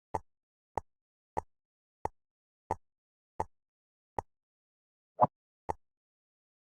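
Jigsaw puzzle pieces tapping down one after another: a sharp click about every two-thirds of a second, with one louder, longer knock near the end.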